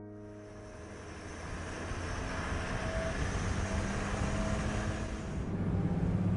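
A motor vehicle running, with a steady low engine hum and road noise that grows louder over the first couple of seconds.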